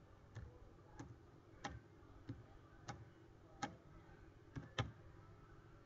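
About eight faint, sharp clicks, most about two-thirds of a second apart and the last two close together, over a low room hum.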